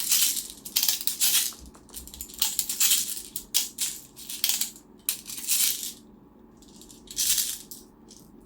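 Loose plastic airsoft BBs rattling in a string of irregular short bursts as they are loaded into a gas blowback pistol's magazine.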